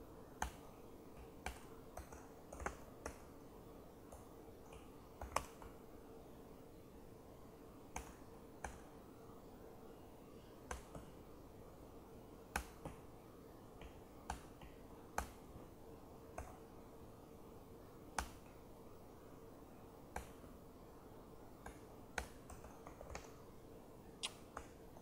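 Irregular single keystrokes on a laptop keyboard, faint, roughly one a second, over a faint steady hum.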